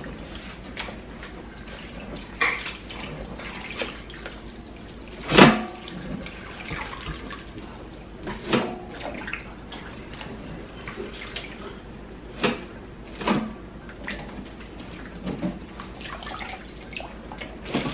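Chopped cabbage lifted by the handful out of a bowl of soaking water and dropped into a mesh strainer in a stainless steel sink: water dripping and splashing, with several sharper splashes, the loudest about five seconds in.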